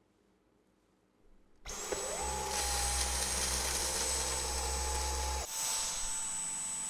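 Dyson V11 cordless stick vacuum switched on: the motor spins up with a rising whine and then runs steadily with a high-pitched whine over the suction noise. Its deeper rumble drops away about two-thirds of the way through while the whine carries on.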